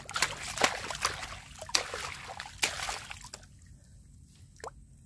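Hands digging in wet tidal mud and shallow water: squelching and splashing with several sharp wet smacks, dying down after about three and a half seconds.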